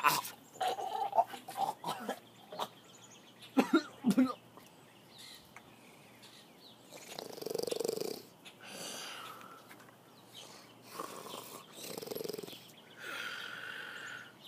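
A person making a string of throaty, non-speech vocal noises: several short coughing grunts in quick succession over the first few seconds, then four longer drawn-out rasping sounds.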